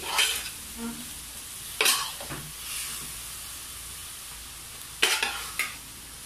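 Pork cubes sizzling steadily in a square frying pan as they render out their own fat. A metal spoon stirs them, with sharp scrapes and clinks against the pan, the loudest about two seconds in and again about five seconds in.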